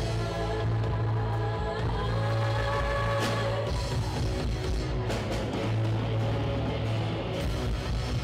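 A live rock band playing, with electric and acoustic guitars, bass guitar and drum kit, the bass holding long low notes under the guitars.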